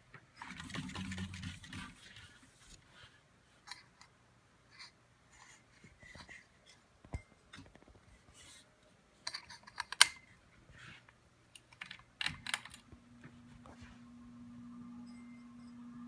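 Handling noise and a scatter of sharp clicks and knocks, loudest about ten seconds in, as a hand touches the plastic switch housing of a 2002 Harbor Breeze Lakeside II ceiling fan. From about thirteen seconds a steady low motor hum comes up from the running fan, its bearings freshly greased.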